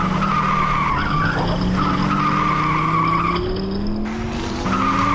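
Race car sound effect: engine tones rising slowly in pitch under a high tire squeal that cuts in and out. It is dubbed over a toy car race.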